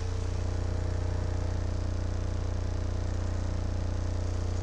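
AudioPipe TXX-BDC4-12 12-inch subwoofer in an SPL box playing a steady 30 Hz test tone: a deep, continuous drone with a fast, even pulsing.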